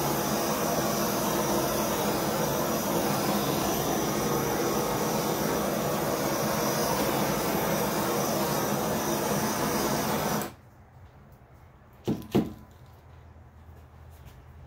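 Handheld propane torch burning with a steady hiss, shut off suddenly about ten seconds in. Two quick knocks follow as the torch is set down on the table.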